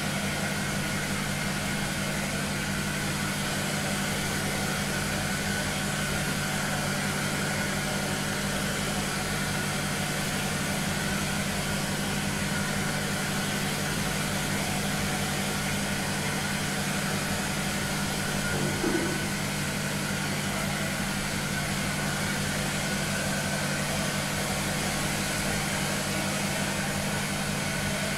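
Handheld hair dryer running steadily, a rush of blown air over a low motor hum, while it dries long hair.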